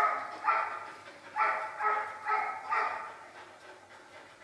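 German shepherd puppy barking, about six short high-pitched barks at roughly two a second, dying away over the last second or so.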